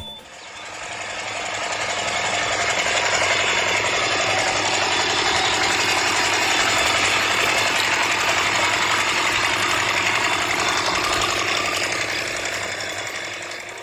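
Small engine running steadily with a fast, even firing rhythm. It fades in over the first couple of seconds and fades out near the end.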